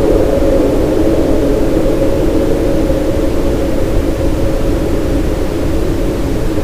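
Steady brown noise with reverb from a Remo thunder tube (spring drum): a dense, even low rumble with most of its weight in the low-middle range, easing off slightly toward the end.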